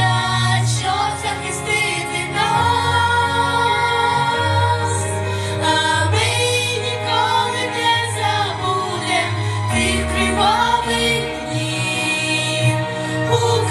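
Girls singing a song together into microphones, over instrumental accompaniment with a steady bass line.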